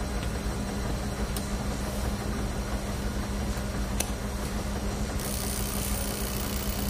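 Steady low mechanical hum of laundromat machines, with a constant drone. There is a single soft click about four seconds in, and a high hiss joins the hum about five seconds in.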